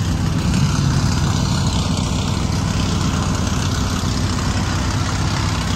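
Cobra-style roadster engines idling steadily, a low, even engine note with no revving.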